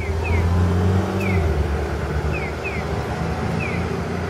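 Japanese pedestrian-crossing audible signal giving its chirping 'piyo' walk tone: short falling chirps alternating single and double ('piyo … piyo-piyo') about every 1.2 s, the cross-calling pattern between the speakers at the two ends of the crossing. Road traffic rumbles underneath, loudest in the first second and a half as a vehicle passes.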